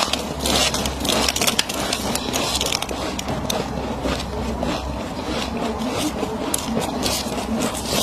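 Close-up chewing and crunching of a mouthful of freezer frost: a dense, continuous run of small crisp crackles.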